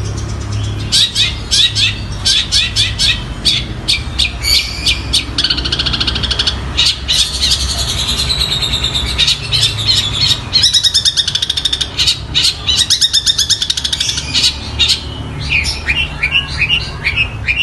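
Long-tailed shrike singing a fast, varied stream of sharp chirps and rattling trills, over a steady low hum.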